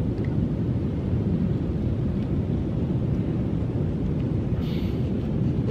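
Wind blowing across the microphone at the beach: a steady low noise.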